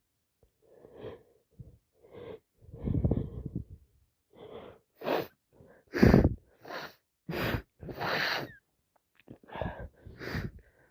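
A woman with a full-blown head cold sneezing: short wheezy, gasping in-breaths build up, then a run of wet sneezes, the loudest about six seconds in.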